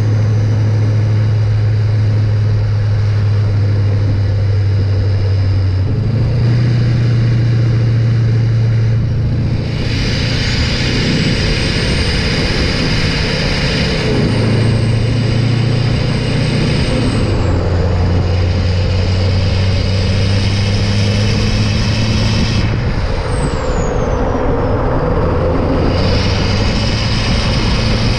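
Exhaust note of an LLY Duramax 6.6-litre turbo-diesel V8 while driving, with air rushing past the pipe. The deep drone steps up and down in pitch several times as engine speed changes, and a high whine rises and falls over it.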